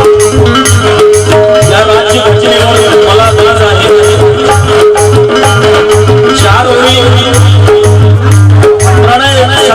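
Instrumental passage from a qawwali ensemble: one note held steady under a wavering melody line, with hand-drum beats and percussion throughout.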